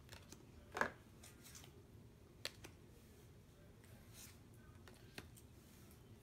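Pokémon trading cards being handled: a few soft clicks and slides of card stock, the sharpest about a second in and others near two and a half and five seconds.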